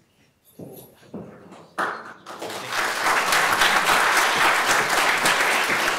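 Audience applause. It starts just under two seconds in and swells within about a second into steady clapping from many hands.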